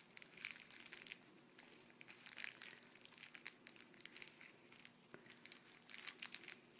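Faint crinkling and rustling of plastic bubble wrap as a handheld laser lying on it is moved and turned, in scattered short crackles.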